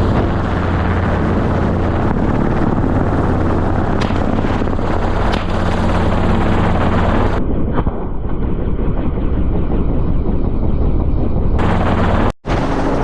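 Helicopter rotor and engine noise, loud and steady, with a few sharp cracks of gunfire. The sound changes character twice and drops out briefly near the end.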